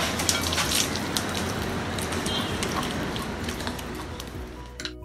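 Wet, crackly squishing of hands rubbing a thick yogurt-and-gram-flour masala paste onto whole pearl spot fish in a glass bowl, with small ticks, slowly fading.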